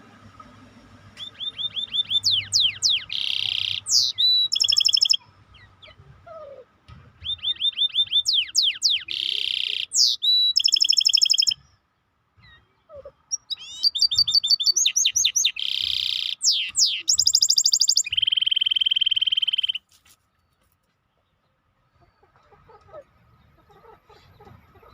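'Maestro' songbird singing in three long phrases with pauses between. Each phrase is made of fast repeated trills, rolling notes and sweeping whistles. The last phrase ends in a long steady trill held for about a second and a half.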